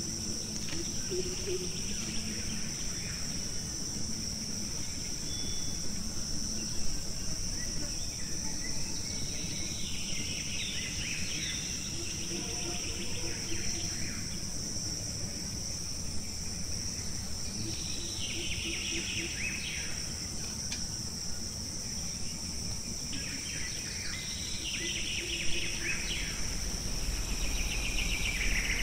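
Forest ambience: a steady high-pitched insect drone, with bird calls chirping in and out several times.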